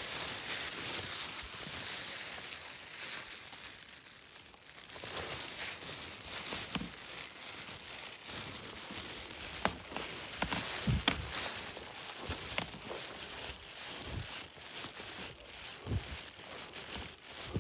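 Rustling and crinkling of someone moving about in a rice paddy, with a few scattered soft knocks.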